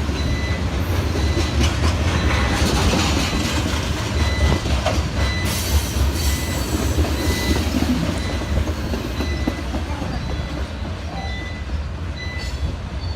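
A train running on the track: a steady low rumble of wheels and cars that eases slightly toward the end.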